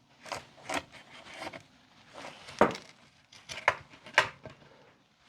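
Barreled action of a Finnish M39 Mosin-Nagant rifle being lifted out of its wooden stock: several light knocks and clicks of metal against wood with some scraping, the sharpest a little past two and a half seconds in and around four seconds.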